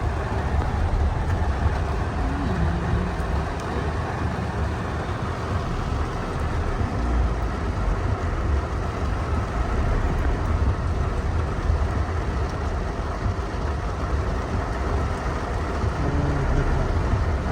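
Steady low rumble of a car heard from inside the cabin, with an even hiss over it.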